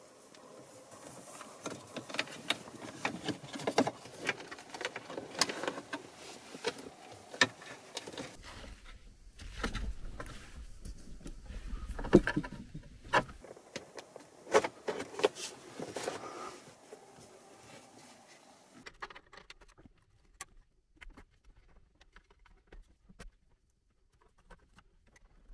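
Rustling and irregular clicking of a wiring harness and plastic connectors being handled and pushed in behind a car dashboard, with a low rumble for a few seconds in the middle. It grows much quieter near the end, leaving only a few scattered clicks.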